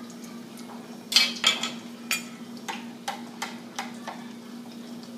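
A spatula knocking and scraping against a frying pan: a quick cluster of loud knocks about a second in, then lighter single taps about every half second. A steady low hum runs underneath.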